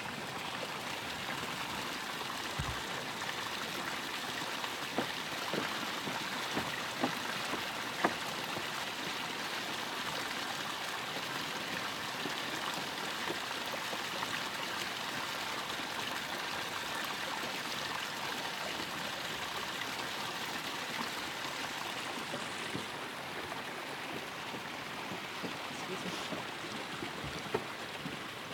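Steady hiss and trickle of water from the Sizzling Basin hot spring and its runoff channel. A few sharp taps stand out about five to eight seconds in.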